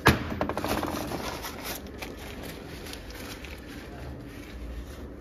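Steel differential parts handled on a metal workbench: one sharp metallic clank at the start, a second or so of light clinking, then faint workshop background.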